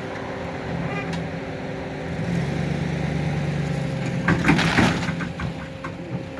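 Pickup truck engine running steadily under load as it pulls on a chain, then about four and a half seconds in a cluster of cracks and splintering as the wooden garage roof tears apart.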